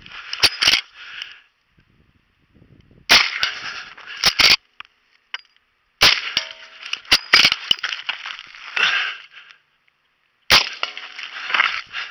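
Uberti reproduction Model 1873 Winchester lever-action rifle in .45 Colt firing several sharp shots a few seconds apart, with shorter clacks between them as the lever is worked. A rustling haze follows each group of shots.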